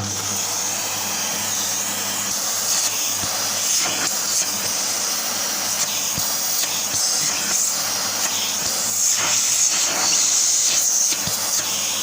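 Small Beko vacuum cleaner switched on and running steadily on a test after repair: a loud airy whoosh over a low motor hum, starting suddenly.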